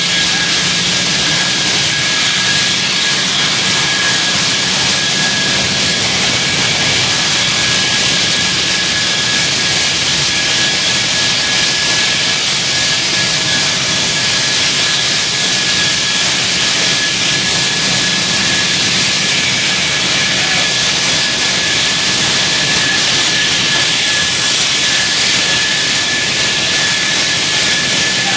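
Propane tank venting gas under pressure through its relief valve and burning as a jet of flame: a loud, steady hiss, with a thin steady tone above it.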